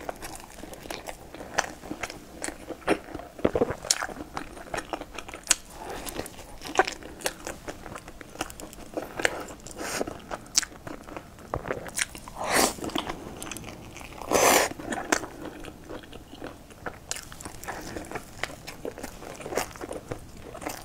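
Chewing and biting a flaky, caramelized layered pastry dipped in cream: a steady run of crisp crunches and chewing clicks, with two louder, longer mouth sounds a little past halfway.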